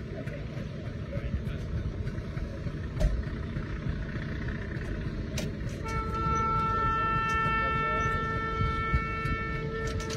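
Moving train's running noise, a steady rumble with clicks of wheels over rail joints; about six seconds in, the train's horn sounds one long, steady blast that holds to the end.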